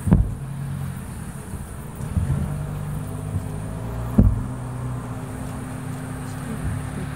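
Large aerial fireworks shells bursting with deep booms, the loudest just after the start and about four seconds in, with smaller thumps between, over a steady low rumble.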